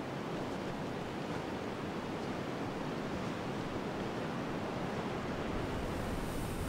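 Steady wind blowing: an even rushing noise with no separate sounds in it.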